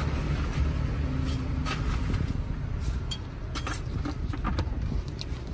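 Steady low rumble of road traffic, with scattered light clicks and knocks.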